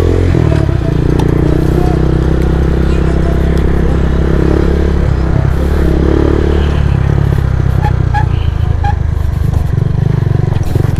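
Motorcycle engine running as the bike rides along, its note holding fairly even.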